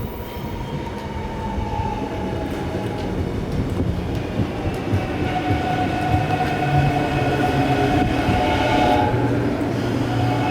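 Electric train approaching on the line, its rumble and layered whining tones growing steadily louder.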